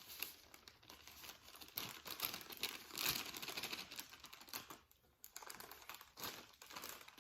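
Cake batter being mixed by hand in a bowl: irregular scraping, wet stirring strokes that come and go in uneven bursts.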